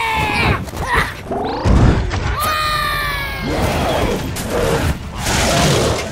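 Cartoon battle sound effects: sharp falling creature cries near the start and again about halfway, a heavy boom about two seconds in, and crashing noise with groans.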